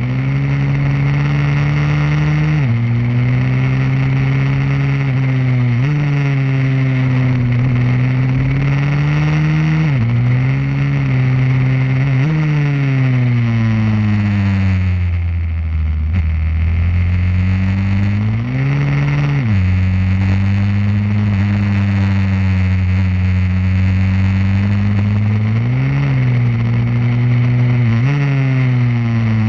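Pit bike's small single-cylinder four-stroke engine heard onboard at racing speed. The revs climb under throttle and drop sharply several times as the rider shifts gear or backs off for corners.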